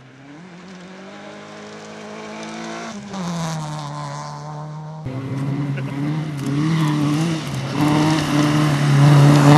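Rally car engine running under load, its note fairly steady with a short drop about three seconds in and growing louder throughout.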